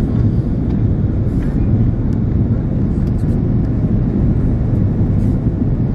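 Steady low rumble of cabin noise inside an Airbus A330-300 in flight, from the engines and the air streaming past the fuselage, heard from a window seat on the descent.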